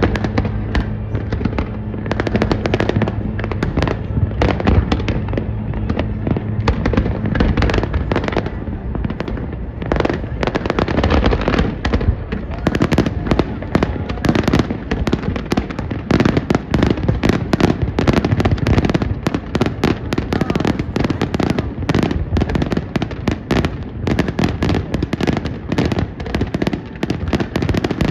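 Fireworks display: a dense run of bangs and crackles, growing busier about twelve seconds in. A low steady ship's horn sounds underneath for the first eight seconds or so.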